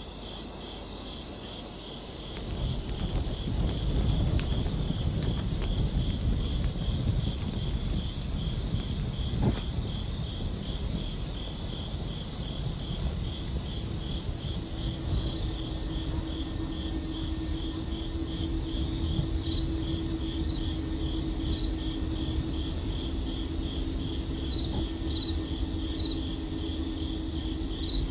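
Crickets chirping in an even, repeating pulse over a low rumble of background noise; a low steady hum comes in about halfway through.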